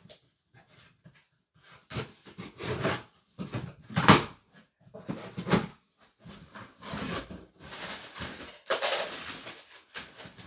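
A cardboard shipping box being opened by hand: a string of irregular scrapes, crackles and rustles of cardboard flaps and paper, some sharp and some drawn out.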